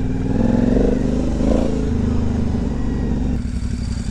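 Aprilia Dorsoduro 900's V-twin engine, breathing through an aftermarket Roads Italia Proj Six exhaust, running at low revs on a dirt trail. The revs rise and fall during the first couple of seconds, then settle steady and lower.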